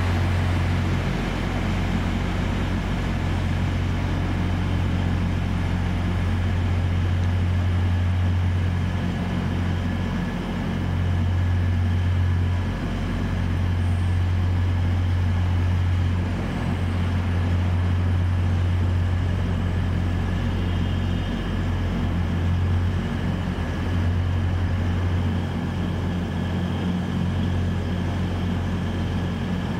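Underfloor diesel engines of a Northern class 195 diesel multiple unit running with a steady low drone that barely changes in pitch.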